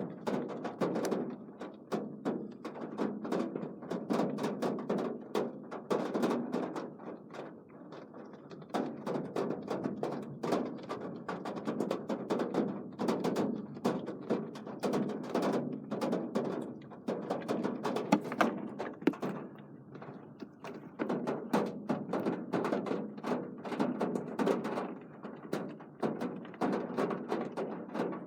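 Raindrops tapping irregularly on a hard surface close to the microphone, a dense patter of small knocks as the rain eases off.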